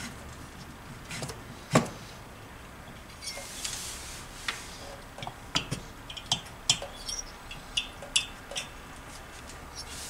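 Aluminium 70cc kit cylinder knocking and clinking against the Tomos A35 moped crankcase as it is worked down over the piston and rings, with one sharper knock about two seconds in, a brief scrape, then a run of small metal clinks.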